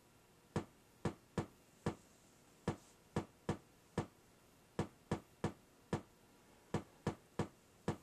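Rob Hordijk Rungler's pulsed output running at slow LFO rate with its mode switch on sparse, heard as sharp clicks about two a second. The spacing is uneven, in short runs of two or three, the chaotic pulse pattern that the Rungler's shift-register feedback produces.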